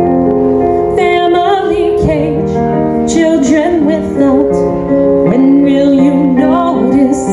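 A woman singing long held notes with vibrato over piano chords played on a Roland RD-88 digital stage piano.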